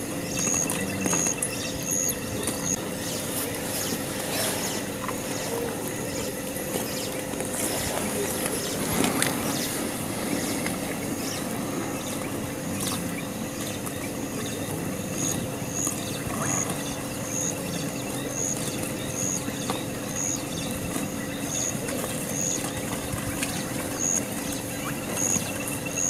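Added nature ambience: a steady outdoor background with a few faint constant tones, and a short high chirp repeating about once a second, heard at the start and again from about halfway through.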